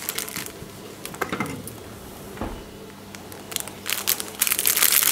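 Plastic packaging of a diamond painting kit crinkling as it is handled: a few crackles at first, a quieter stretch, then denser crinkling from about three and a half seconds in, loudest near the end.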